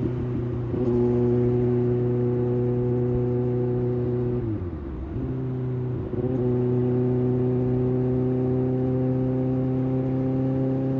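Kawasaki ZX-6R's 636 cc inline-four engine running at steady revs under way. About halfway through the revs fall sharply as the throttle is closed, then pick back up and hold.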